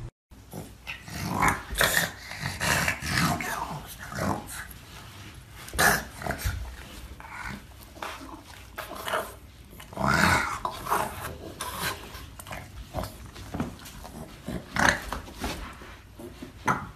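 A dog growling in irregular bouts, the loudest about two, six, ten and fifteen seconds in.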